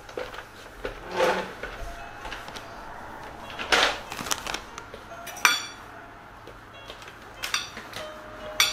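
A metal fork clinks and taps against a ceramic plate while food is cut up on it, with a few sharp clinks in the second half. Two softer, longer rustles come about a second in and again near four seconds.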